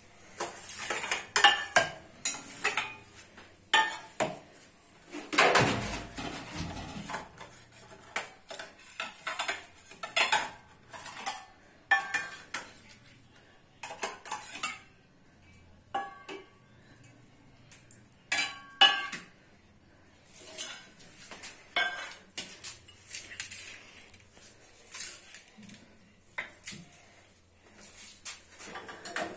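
Stainless steel cups, saucers and plates clinking and clattering as they are picked up and set down one after another, many separate clinks at an uneven pace, some ringing briefly.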